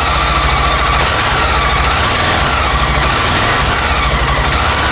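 Suzuki XF650 Freewind's single-cylinder four-stroke engine running steadily, a fast, even low pulsing.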